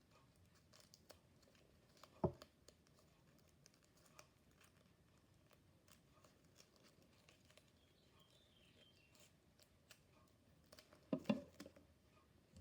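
Faint handling of clear tape and paper while the tape is pressed down, mostly near silence with small ticks, one sharp tap about two seconds in and a short cluster of louder knocks and rustles near the end.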